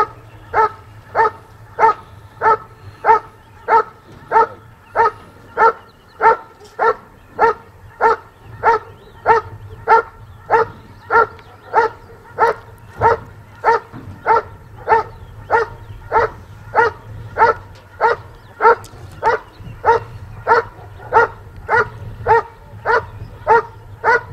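A dog barking without pause at a helper held in a blind, in an even rhythm of just under two barks a second: the guarding barks of the hold-and-bark exercise in protection work.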